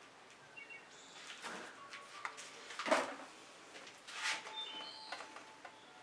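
Plastic squeeze bottle of acrylic paint being squeezed: soft sputtering spurts of air and paint from the nozzle, about three, with brief faint squeaky whistles between them.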